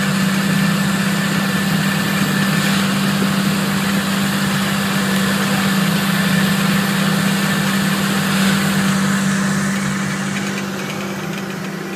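Tractor engine running steadily while pulling a laser-controlled dirt scraper, with a steady hiss of dry soil rolling along the scraper blade. The sound fades over the last couple of seconds.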